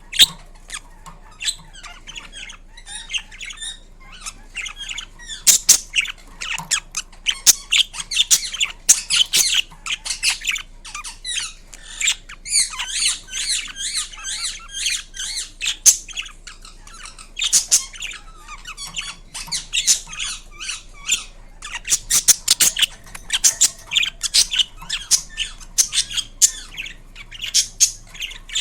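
Indian ringneck parakeet calling: runs of short, shrill, high-pitched squawks and screeches in quick irregular bursts, with a few brief pauses.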